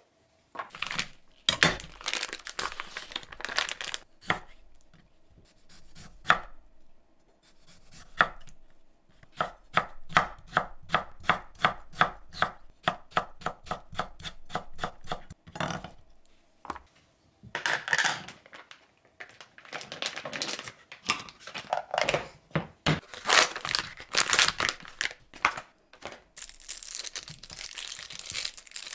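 Chef's knife cutting vegetables on a wooden cutting board, including a run of quick, even cuts at about four a second through pickled radish as it is sliced into strips. Near the end, plastic wrappers crinkle as crab sticks are unwrapped.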